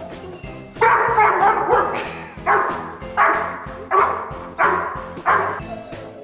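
A dog barking repeatedly, about eight barks spaced roughly three quarters of a second apart, starting about a second in.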